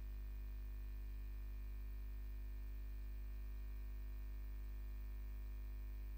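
Steady electrical hum from the broadcast audio chain: a low mains hum with a buzz of higher steady tones above it, unchanging throughout, with nothing else heard.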